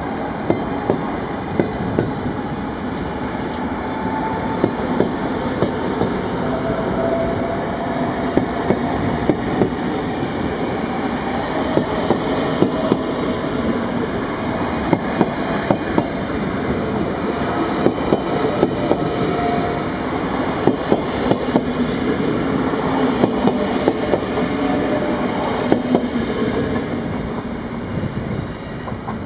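NS VIRM double-deck electric multiple unit passing at close range, its wheels clicking sharply and irregularly over the track under a steady rumble, with a faint whine.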